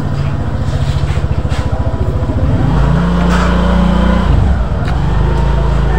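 A loud motor vehicle engine running, with a rapid pulsing beat for the first couple of seconds, then a steadier tone that dips in pitch and comes back up past the middle.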